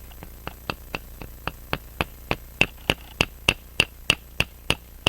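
Light, even taps on the punch of a K&D No. 50 B balance staff remover in a staking set, about three a second and getting louder past the halfway point. The taps are driving the roller off a pocket watch's balance staff.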